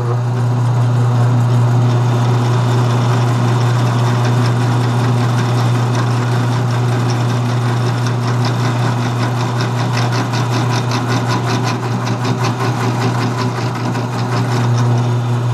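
Drill press motor running at its lowest speed with a steady hum; from about halfway in, a fast even ticking joins it as an old, rusty 1/8-inch bit bores into pine.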